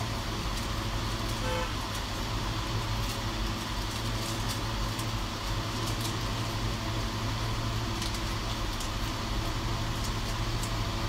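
Steady low background hum with a short, faint horn-like toot about a second and a half in.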